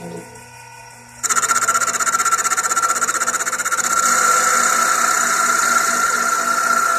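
Small CNC lathe turning cylindrical stock: the spindle runs at a low hum, then about a second in the cutting tool bites and a loud, steady, high-pitched screech sets in as it cuts into the spinning workpiece.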